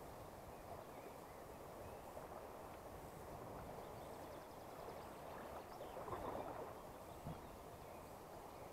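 River water running over a shallow, stony stretch: a faint, steady rush that swells briefly about six seconds in, with one small click soon after.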